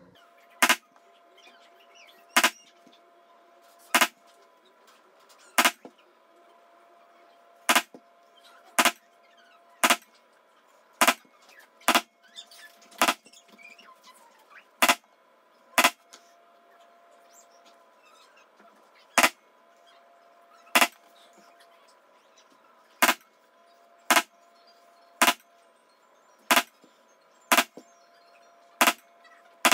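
White mallet striking a metal leather-stamping tool, pressing a basket-weave pattern into a leather sheath: about twenty sharp strikes, roughly one a second, with a pause of a few seconds midway.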